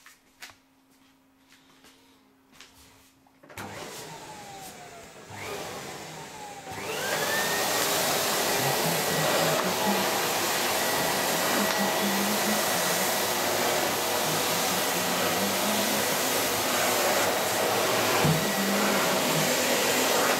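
A few faint clicks, then a vacuum cleaner switched on about three and a half seconds in. Its motor spins up with a rising whine and settles into a steady, loud run with a thin high whine.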